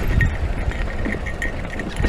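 Electric mountain bike rolling over a rocky dirt trail: tyres crunching on rock and the bike rattling in irregular knocks, over a steady low rumble.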